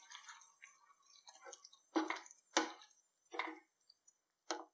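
A wooden spatula stirring thick egg curry gravy in a pan: soft wet squelching at first, then four louder, separate strokes against the pan.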